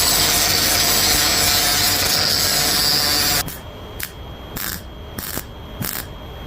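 Angle grinder grinding steel with a steady whine for about three and a half seconds, then cutting off; after it come short evenly spaced bursts, about three a second.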